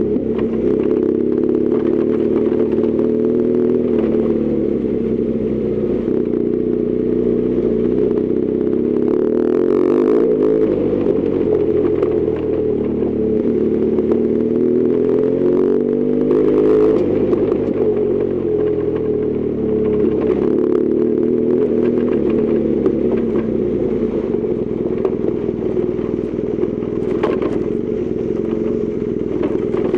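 BMW R1200GS Adventure's flat-twin boxer engine running under way, heard from the bike. The revs fall and climb again twice, about ten and seventeen seconds in, and scattered short knocks and clatter come through over the engine.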